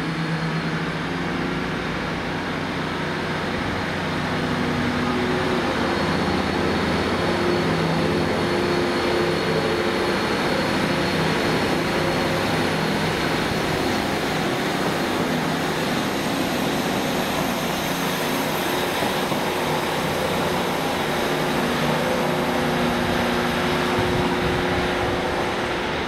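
Diesel train engine running steadily, with a low hum and a thin high whine above it.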